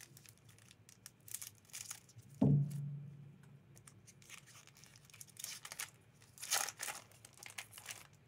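Foil wrapper of a Magic: The Gathering booster pack crinkling and tearing open in gloved hands, in short bursts. A dull thump about two and a half seconds in is the loudest sound.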